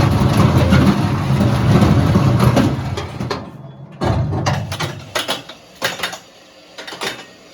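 A vehicle's steady low rumble for about three seconds, cutting off abruptly, then returning briefly before a few scattered knocks and clicks.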